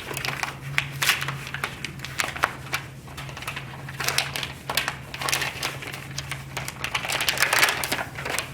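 A sheet of contact paper crinkling and crackling as it is handled and laid onto a cardboard box. It is a dense, irregular run of crackles that gets busier in the second half.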